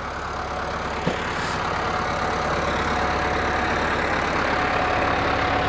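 A motor vehicle's engine running steadily, growing gradually a little louder.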